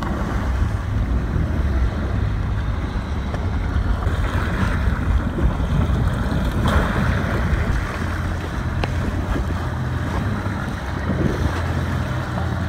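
Jet ski engine running at speed, its low drone shifting in pitch a few times, with rushing spray and wind buffeting the microphone.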